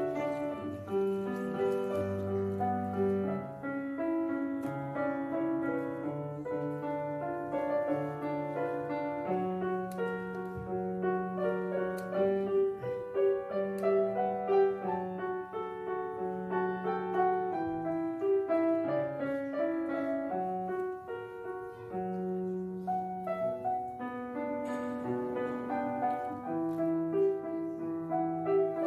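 Background instrumental piano music: a slow melody over held chords.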